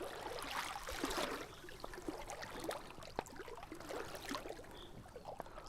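Shallow river water splashing and sloshing around a person's legs as he wades across, with small irregular splashes over the flowing water.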